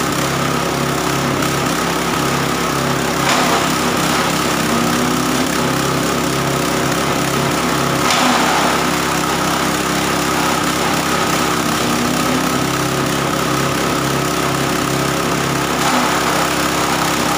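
6.5 hp single-cylinder petrol engine running steadily, driving a belt-driven grass chopper with six steel blades. Short noisy surges about three seconds in, about eight seconds in and near the end as grass is fed in and chopped.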